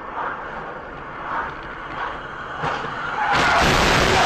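Car driving with steady road noise, then about three seconds in a sudden loud car crash: the noise of the impact and debris, which goes on for over a second.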